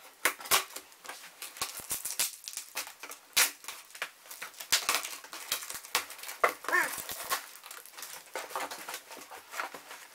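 A cardboard shipping box being opened by hand: packing tape slit and torn, flaps pulled apart, with irregular scraping, tearing and crinkling of cardboard and paper. A short wavering squeal comes about six and a half seconds in.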